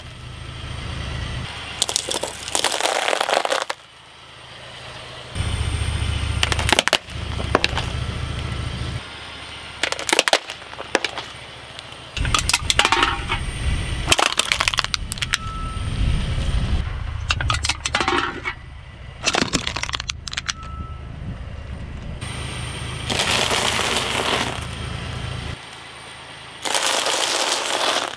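A car tyre rolling slowly over a series of objects on asphalt, crushing them one after another with sharp cracks, snaps and crunches, between stretches of low tyre rumble. Among them are hard candy canes and an aluminium drink can.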